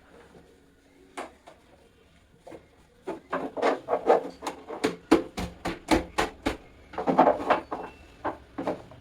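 Quick rhythmic knocking and rubbing against a table fan's housing as it is wiped down vigorously, about four strokes a second, starting about three seconds in after a couple of single knocks.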